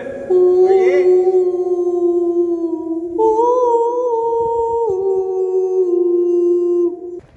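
A long wordless humming tone, like an eerie held vocal note: it holds one pitch, steps up about three seconds in, drops back around five seconds and stops suddenly near the end.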